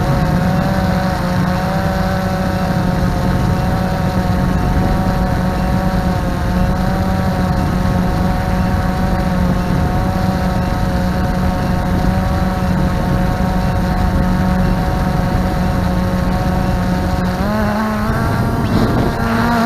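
Multirotor drone's propellers and motors whining steadily as it hovers; near the end the pitch wavers and rises as the motors change speed.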